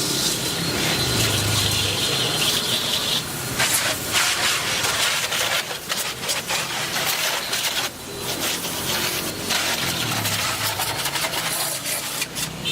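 A steady hiss for about the first three seconds, then irregular rubbing and scraping noises.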